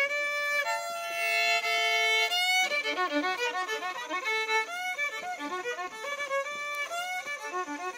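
Violin playing: a note held for about two seconds, then a run of quick, short notes.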